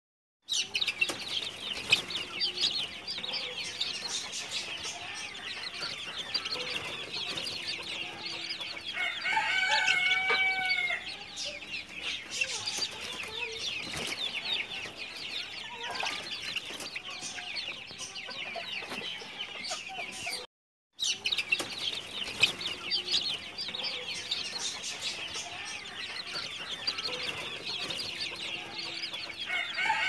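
A flock of young Silkie chickens peeping constantly in quick, high-pitched cheeps, with one longer crow-like call about ten seconds in. The sound cuts out for a moment just after twenty seconds.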